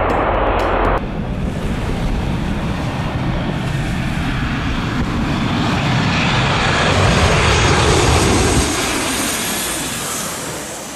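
Jet airliner engines, a Boeing 737-800 on low final approach, passing close by. The roar builds and brightens to its loudest about eight seconds in, then fades.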